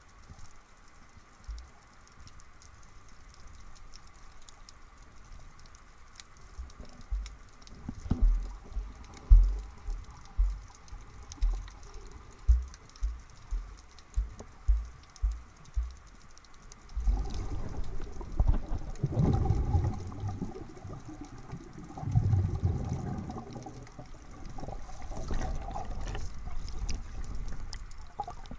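Muffled sound of water moving against an underwater camera: a run of regular low thumps, about one and a half a second, then a louder low rushing and bubbling from about two thirds of the way in.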